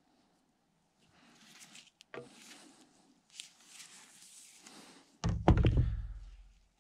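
Light rustling and handling of PVC pipe, then, about five seconds in, a loud hollow clatter and thunk of 3/4-inch PVC pipe set down on a wooden workbench, dying away over about a second.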